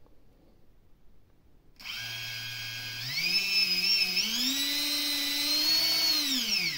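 Bare brushless FPV drone motor, with no propeller, spun by a 30 A BLHeli_S ESC. A motor whine starts about two seconds in, climbs in pitch in two steps as the throttle is raised, holds, then falls away near the end. The ESC is driving the motor normally.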